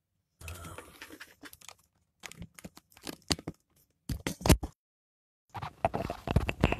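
Handling noise of a clip-on microphone being plugged in and fitted to clothing: close rustling, scraping and clicks in irregular bursts. The audio cuts out completely between bursts.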